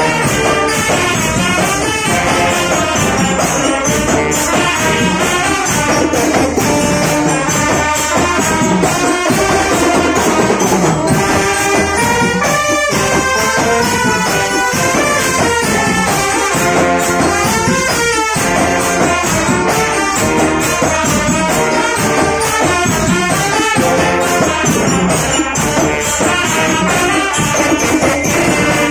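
Indonesian marching drum band playing live: trumpets and other brass carry a melody over a driving beat of marching snare, tenor and bass drums, with mallet-struck marching bells.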